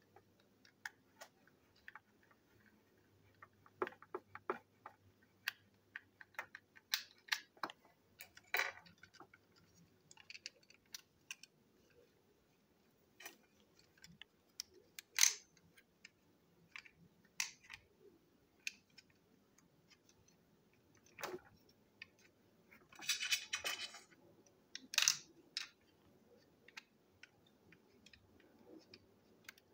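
Scattered small clicks and taps of plastic toy train parts being handled and fitted together, with a sharper click a little past halfway and a brief rattling scrape a little over two-thirds in.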